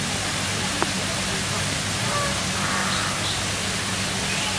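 Steady rain falling on a pond and the plants around it, an even hiss, with one sharp click a little under a second in.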